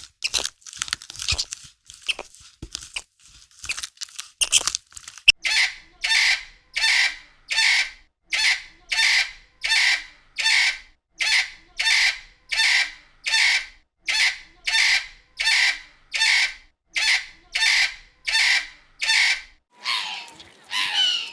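An animal giving a rasping call over and over, about twice a second, after a few seconds of crunching, chewing-like clicks.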